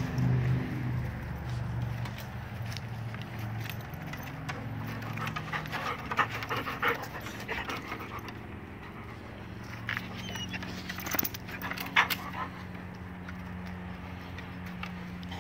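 English springer spaniels panting in quick runs of short breaths, with a few sharp clicks and a low steady hum underneath.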